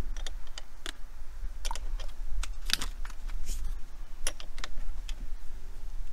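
Wrench tightening a nut on a battery terminal post, with irregular sharp metal clicks and clinks as the wrench is fitted and turned.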